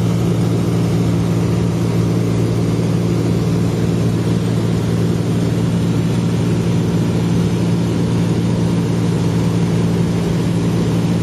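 Light aircraft's engine and propeller droning steadily in flight, heard from inside the cabin.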